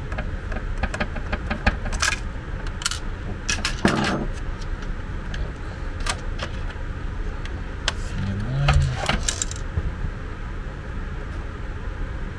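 Scattered light clicks and rattles of small plastic parts as a screwdriver works and the plastic gearbox of a portable suction aspirator is freed and lifted from its housing, over a steady low hum. A short low hum about eight and a half seconds in.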